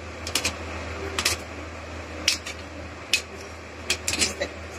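Knife cutting soft boiled gram-flour dough logs on a stainless-steel plate, the blade clicking against the metal with each cut: about half a dozen sharp taps at uneven intervals.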